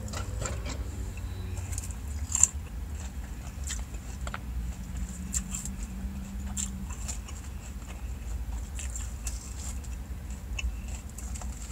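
A person chewing and biting into a mouthful of salad close to the microphone, with scattered crisp clicks and crunches, the sharpest about two seconds in, over a low steady rumble.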